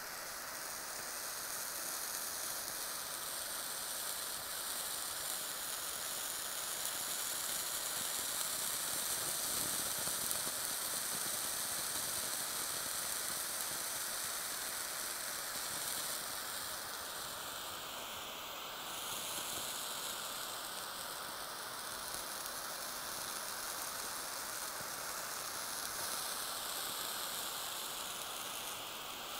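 Small handheld blowtorch flame hissing steadily against a wedge of blue cheese, with the cheese sizzling as it melts at the base. The hiss's tone dips briefly past the middle.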